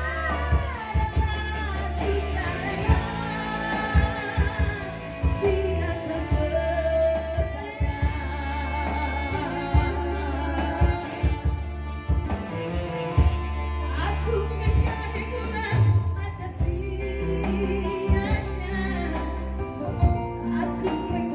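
A song with a singer, heavy bass and drum hits, played back through Yamaha DBR and DSR powered PA speakers in a sound test.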